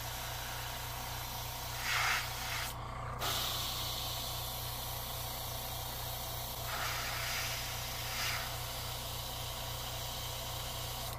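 Gravity-feed airbrush hissing steadily as it sprays paint, with louder spurts about two seconds in and again around seven and eight seconds, and the air briefly cut off near three seconds. A steady low hum runs underneath.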